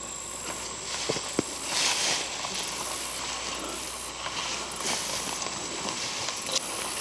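Footsteps and vegetation rustling against clothing while pushing through dense undergrowth, in uneven surges, with two short sharp snaps just after a second in.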